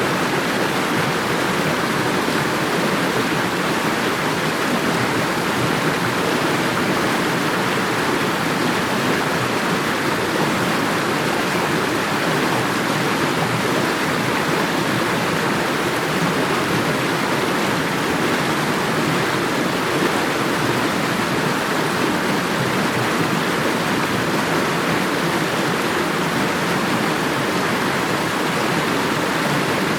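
Running water rushing and splashing steadily, a loud, even wash of sound that holds without any break or change.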